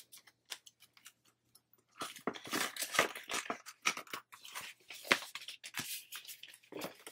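Paper money and binder pages rustling and crinkling as they are handled in a ring binder, with light clicks and taps. Sparse at first, it grows busier and denser about two seconds in.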